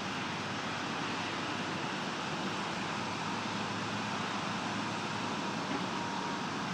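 John Deere backhoe's diesel engine running steadily, an even mechanical noise with no distinct knocks or impacts.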